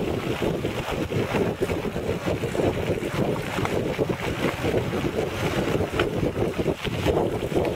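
Steady rumble and rattle of a recumbent cycle rolling over a rough, wet road surface, with wind buffeting the microphone.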